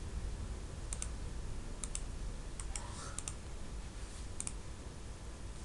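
Computer mouse button clicking about four times, each click a close pair of sharp ticks, over a low steady room hum.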